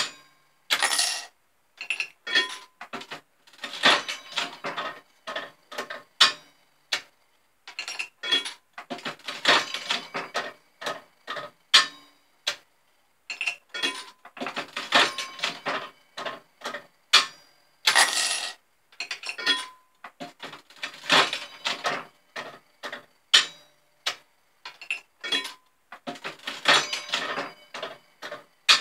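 Aristocrat Arcadian 'Golden Dragon' one-armed bandit slot machine being played: repeated bursts of metallic clicking, clunking and rattling from its handle and reel mechanism, mixed with coins clattering.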